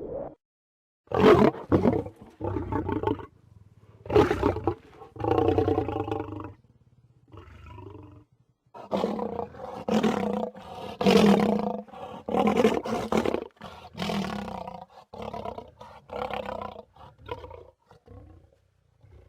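Lion growling and snarling in a string of short, rough bursts with brief pauses between them, running together more densely in the second half.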